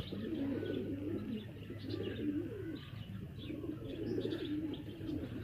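Several domestic pigeons cooing, their low coos overlapping one another.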